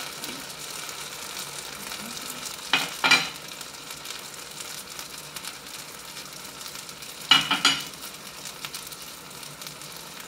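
Chicken pieces frying in hot olive oil in a nonstick pan, giving a steady sizzle. Two pairs of sharp taps sound about three and seven and a half seconds in.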